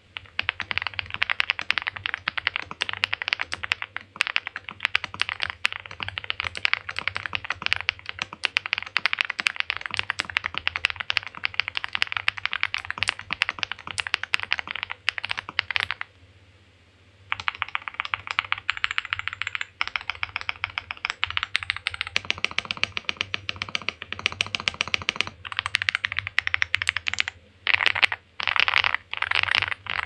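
Fast typing on a Chilkey ND75, a 75% aluminium mechanical keyboard: a dense, continuous stream of key clacks, with a short pause about halfway through.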